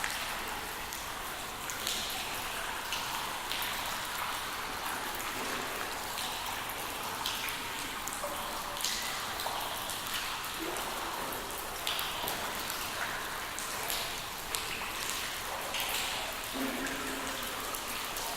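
Steady rain falling, a constant hiss with frequent distinct drops pattering on a surface.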